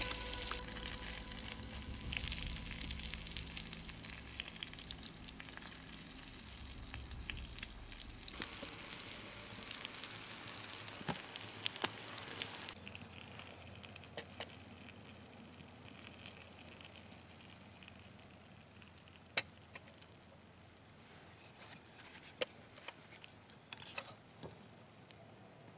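Egg frying in a small pan over a wood campfire: a steady sizzle with crackles that gradually fades, then stops abruptly about halfway through. After that comes the quieter crackle of the burning campfire, with sharp pops now and then.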